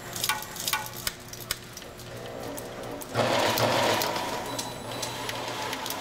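Harness taping machine running: a steady motor hum with a few sharp clicks as the harness is handled, then about three seconds in a louder whirring starts as the rotating tape head spins to wrap non-adhesive tape around the harness, easing slightly but carrying on.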